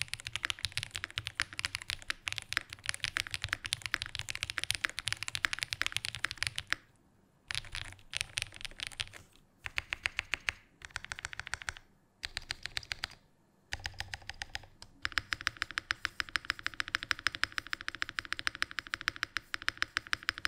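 Fast typing on a Kyuko80 aluminium-cased mechanical keyboard with stock Gateron Pureberry switches on a polycarbonate plate and GMK keycaps: a quick stream of key clacks. About seven seconds in it breaks into short separate bursts, then turns to dense fast typing again for the last five seconds.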